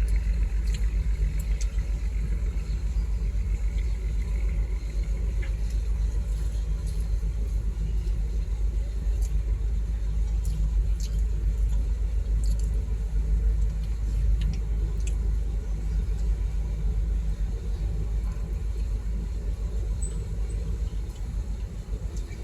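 Heavy diesel machinery running steadily with a deep low rumble, with a few faint clicks over it.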